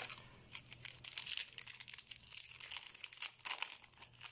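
Yu-Gi-Oh booster pack's foil wrapper crinkling in quick irregular crackles as it is handled and torn open.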